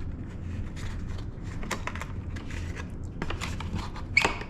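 Packaging and parts being handled: a busy run of light clicks, rustles and scrapes, with one sharper knock about four seconds in, over a steady low hum.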